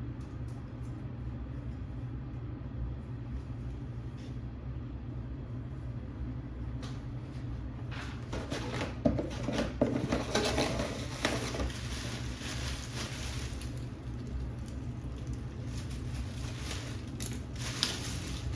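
Packaging rustling and crinkling as clothes are unwrapped from shipping boxes, with a few sharp handling clicks, loudest about halfway through, over a steady low hum.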